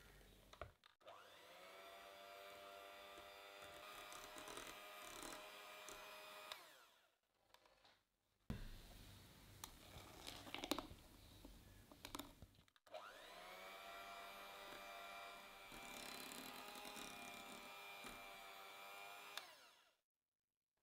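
Electric hand mixer beating whipping cream toward stiff peaks. It runs twice for about five or six seconds each, its whine rising as the motor spins up and then holding steady. Between the two runs there are a few clinks and knocks.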